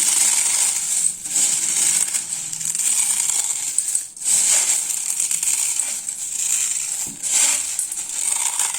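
Dry cornflakes being crushed by hand, a continuous crunching and crackling broken by short pauses about one, four and seven seconds in.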